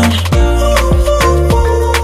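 Upbeat backing music with a steady drum beat and bass, in an instrumental stretch without vocals.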